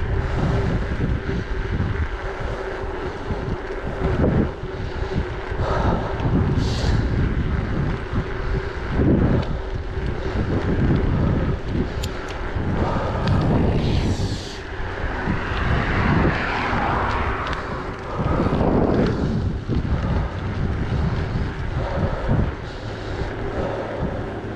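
Wind buffeting the microphone of a camera on a moving mountain bike, a loud, gusting rush that rises and falls.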